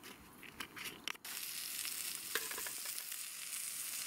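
Chicken-and-leek yakitori skewers sizzling on a grill pan over a gas camp stove: a steady hiss that starts suddenly about a second in. Before it, a few light clicks.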